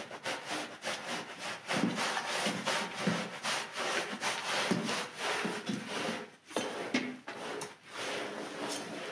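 Long-handled scrub brush scrubbing a soapy, foam-covered rug: quick repeated back-and-forth strokes of wet bristles rubbing over the pile, with a short break about six and a half seconds in.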